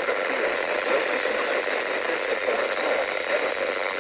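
Steady hiss of radio static, even and unbroken.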